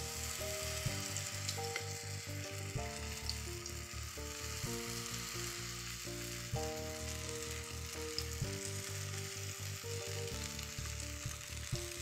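Zucchini fritter batter sizzling steadily in hot vegetable oil in a frying pan as spoonfuls are dropped in, with background music.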